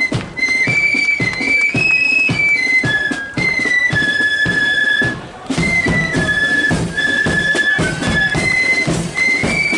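Marching flute band playing a tune, the flutes carrying a high melody over the beat of the drums; the music dips briefly about five seconds in before the tune picks up again.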